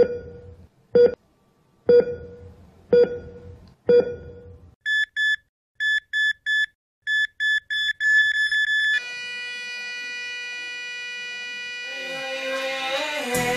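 Heart-monitor beep sound effect: five beeps about a second apart, then quicker, higher beeps that speed up and run together, followed by a long steady tone. Music rises in near the end.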